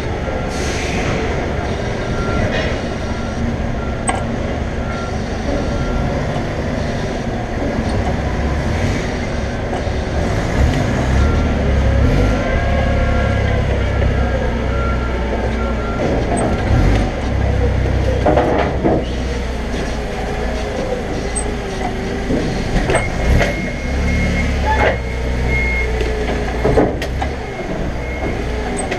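Toyota forklift running and driving with a load, a steady low engine sound with knocks and rattles from the machine as it travels, several sharper knocks near the end.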